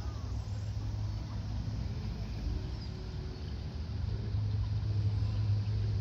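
A steady low hum, like a motor or distant engine, that grows louder about four seconds in, over a faint even hiss, with a faint bird chirp or two.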